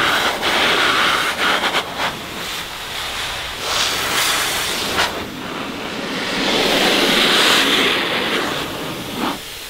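Big Boi Blower Pro dual-motor car dryer blowing a rush of air that blasts water off the car's body, the noise swelling and easing as the nozzle is moved.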